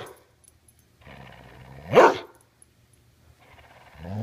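Border collie growling with a tennis ball in its mouth: a low grumbling growl that swells into a loud rising bark-like yowl about two seconds in, then a second growl begins near the end. It is the dog's vocal protest while it refuses to give up the ball.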